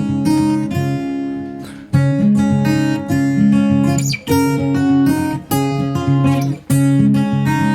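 Acoustic guitar music: strummed chords changing about every second.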